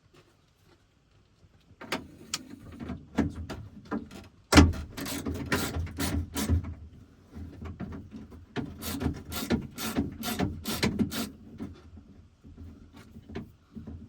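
Ratchet with a 10 mm socket clicking on the door handle bolts inside a pickup door, in runs of sharp clicks about two to three a second, with a louder knock about four and a half seconds in.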